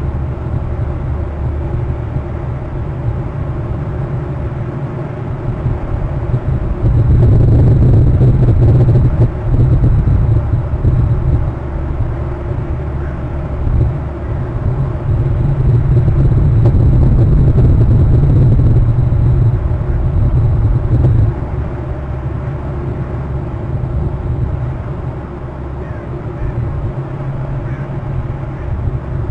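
Low rumble of wind buffeting an outdoor webcam microphone, swelling in two louder gusts.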